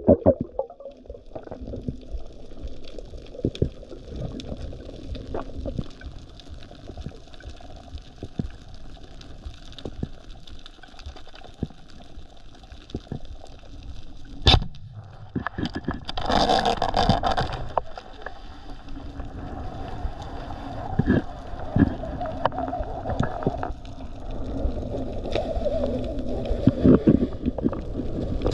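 Underwater water noise through a camera housing, with scattered clicks throughout. Halfway through comes one sharp crack as the speargun is fired, followed by a couple of seconds of louder rushing noise.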